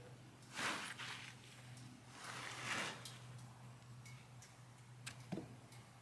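Freshly sawn cedar boards sliding and rubbing as they are handled on the sawmill bed: two brief swishes, then a light knock about five seconds in, over a low steady hum.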